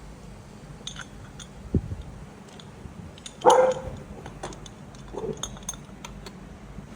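Quiet workshop sounds: light scattered clicks, a low thud that falls in pitch about two seconds in, and a short pitched call about three and a half seconds in, with a fainter one near the end.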